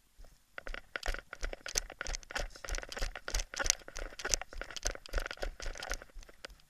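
Rapid, irregular crunching and crackling of dry brush, twigs and stones underfoot as someone moves quickly through scrub, starting about half a second in and stopping shortly before the end.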